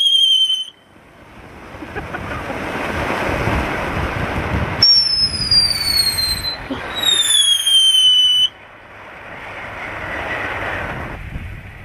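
Firework fountain (the Millennium Falcon-shaped 'Legend') spraying with a rushing hiss that swells for a few seconds. Its whistles sound three times: a short one at the start, then two longer ones about halfway and two-thirds through, each falling in pitch. The hiss drops off sharply after the last whistle and dies away.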